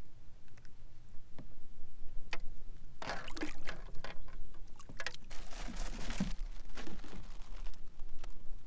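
Water splashing and trickling against a fishing kayak, in irregular bursts about three seconds in and again about five seconds in, with a few small knocks.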